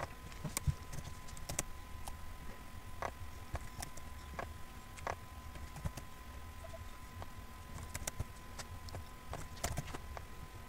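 Computer keyboard keys and mouse buttons clicking in scattered, irregular taps, as labels are typed into a dialog box, over a low steady hum.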